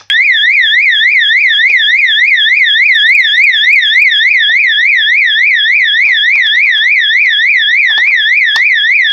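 Fire alarm horn set off from a pull station, starting abruptly and sounding loud. Its tone sweeps up and down steadily, about three times a second.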